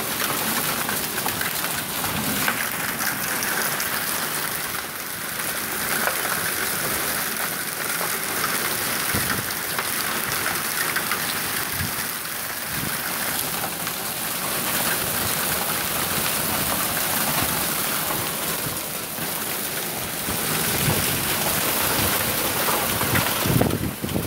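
Heavy rain from a severe thunderstorm pouring down in a steady, dense hiss.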